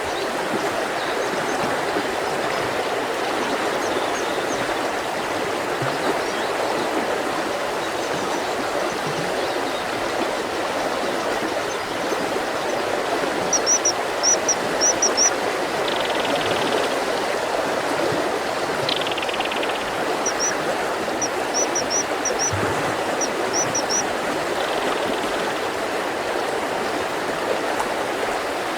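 Mountain river rushing steadily over rocks, with a small bird's high chirps coming in short quick runs about halfway through and again a few seconds later.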